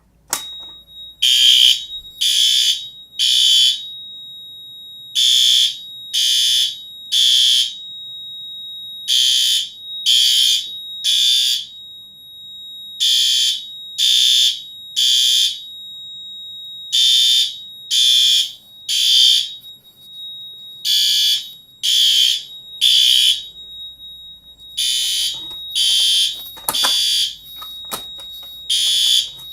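A fire alarm pull station is pulled with a sharp click and the alarm sounds at once. Horns blare in the temporal-three evacuation pattern, three short blasts about a second apart then a pause, over and over, above a steady high-pitched tone.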